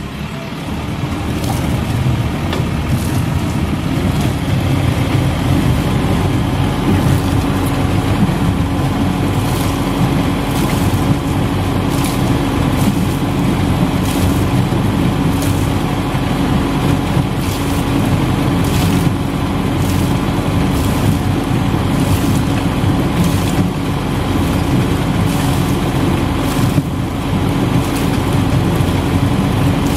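Kramer wheel loader's engine running with a KWFS beet washer bucket working, a steady machine hum that builds over the first few seconds, with irregular sharp knocks of sugar beet tumbling inside the bucket.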